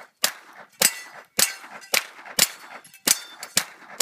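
Semi-automatic firearm fired in a steady string, about seven sharp shots at a little under two a second.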